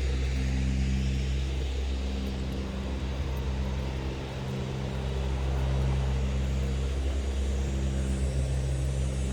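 Steady low mechanical drone made of several even tones, like an engine running, easing off briefly about four seconds in and then steady again.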